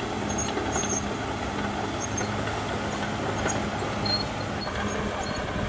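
Caterpillar D6R XL bulldozer's diesel engine running steadily under work, with short high squeaks on top.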